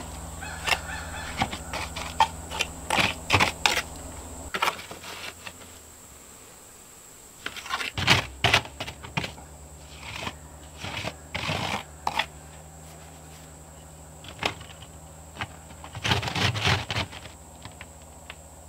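Hand tools working wet mortar into a stone veneer: irregular short scrapes, clicks and taps of a trowel and float against stone and mortar, in clusters with brief pauses.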